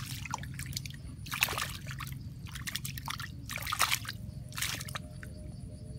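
Water sloshing and splashing in about four short bursts, over a steady low hum.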